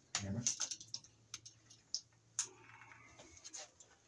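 Scattered light clicks and ticks from a hand tool and stiff electrical cable being handled at a metal junction box, with a soft rustle a little past the middle.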